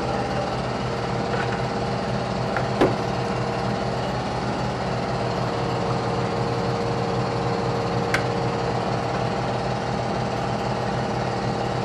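Air compressor running steadily, with a couple of sharp clicks about three and eight seconds in.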